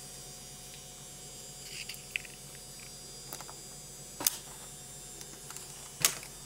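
Squirrel cracking pine nut shells with its teeth: a few sharp cracks, the loudest about four and six seconds in, over a steady faint hum.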